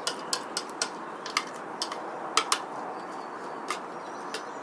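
Puppies moving about: a run of about a dozen irregular sharp clicks and taps, with faint high-pitched whimpers around the middle and near the end.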